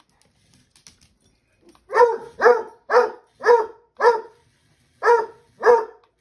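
Puppy barking repeatedly: seven sharp barks about two a second, starting about two seconds in, with a short break before the last two.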